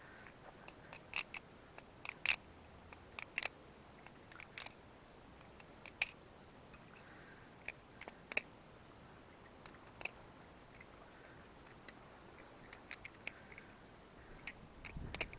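BeFound butterfly knife being flipped: its handles clack against each other and the blade, giving sharp clicks at uneven intervals, sometimes two or three in quick succession.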